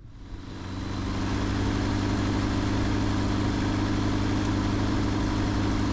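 Bushcat light-sport taildragger's 100 hp Rotax four-cylinder engine and propeller running steadily at low taxi power, fading in over the first second and a half.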